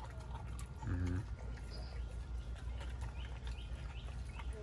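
Pit bull eating a whole raw chicken: faint chewing and tearing sounds, with a short low grunt about a second in.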